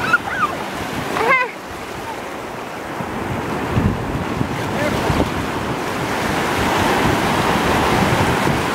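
Ocean surf washing in and out, with wind buffeting the microphone. A short shout comes about a second in.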